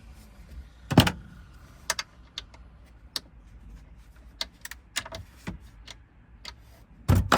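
Irregular clicks and knocks of hand tools being handled and set down, with a sharp knock about a second in and a louder clatter near the end.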